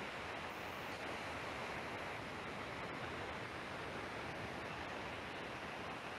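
Steady hiss of background noise with no speech, and a few faint ticks.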